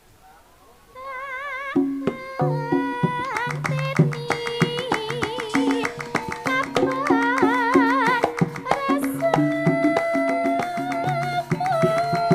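Javanese gamelan ensemble playing a gending. A wavering melodic line enters about a second in, then kendang drums and struck percussion join just before two seconds and keep a steady rhythm.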